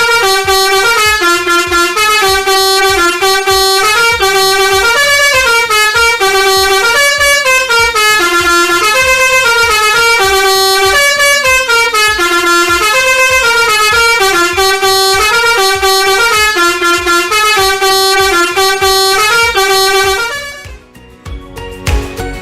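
Telolet bus horn, a multi-tone air horn playing a loud melody of stepping notes, cutting off about twenty seconds in.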